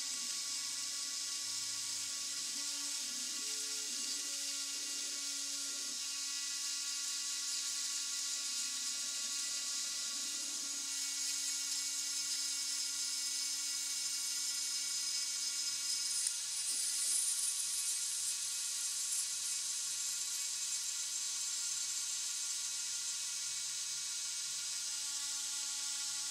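Dremel-type rotary tool running at high speed with a steady high whine as its small bit routes a groove in wood, driven by a scrap-built CNC. Underneath, the salvaged photocopier stepper motors hum at pitches that change as the axes move, steadying after about eleven seconds; the cutting briefly gets louder and brighter around two-thirds of the way in.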